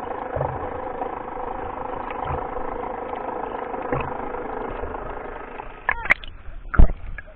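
Boat engine heard underwater as a steady drone. About six seconds in, a few loud thumps and sloshes as the camera comes up beside the boat's hull.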